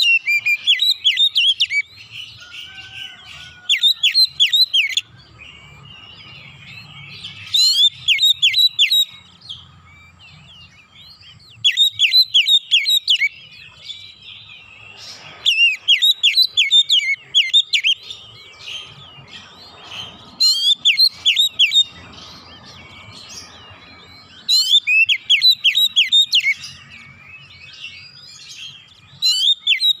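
Oriental magpie-robin (kacer) singing in loud volleys of rapid, sharply sweeping whistled notes, each burst lasting a second or so and repeating every three to four seconds, with softer twittering in between. This is the fast, forceful 'nembak' song style prized in competition kacer.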